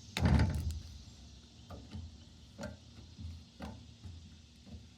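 Butter slime being squished and worked by hand for ASMR: a loud squelch just after the start, then soft pops and clicks about once a second.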